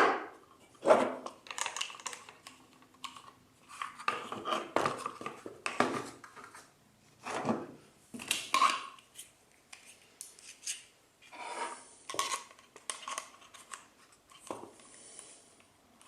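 Woodworking clamps being handled and tightened onto a glued-up wooden box: irregular metal clinks and clicks and knocks against the wood, with a couple of short scraping sounds.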